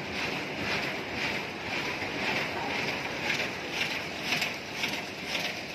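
DGM automatic flatbed die-cutting machine with stripping running at about 7,000 sheets an hour. The press cycles in a steady mechanical rhythm of about two strokes a second, one stroke per sheet.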